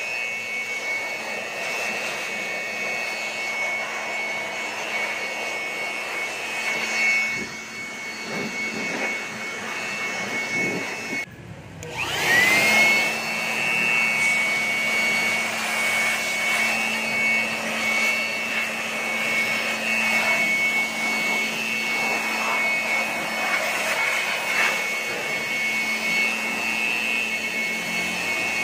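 Handheld electric blower running with a steady high whine, blowing dust off sound equipment. About eleven seconds in it cuts out for a moment, then spins back up with a rising whine and runs on.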